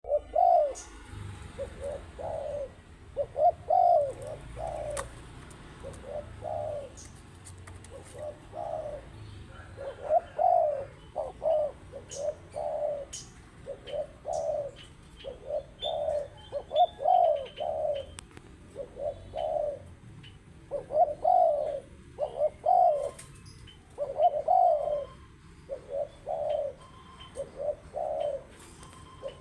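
Spotted dove (tekukur) cooing over and over, short low notes grouped in phrases of several coos with brief pauses between, with faint chirps of small birds behind.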